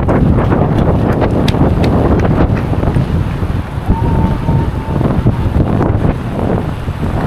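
Wind buffeting the microphone of a camera riding along on a moving bicycle. A thin high tone sounds for about a second, about four seconds in.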